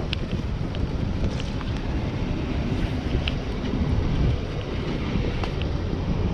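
Wind buffeting the microphone, a steady low rumble with a few faint ticks.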